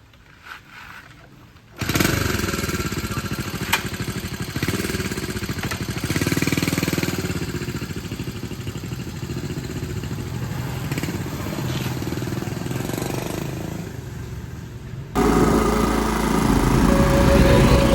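Honda C90 single-cylinder four-stroke engine coming to life suddenly about two seconds in and running steadily. Near the end it turns abruptly louder and fuller.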